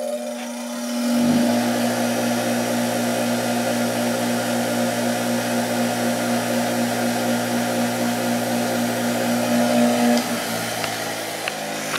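Bench grinder coming up to speed and running with a steady hum, then switched off about ten seconds in and winding down. It is mounted on its stand over split rubber hose pads meant to damp its vibration.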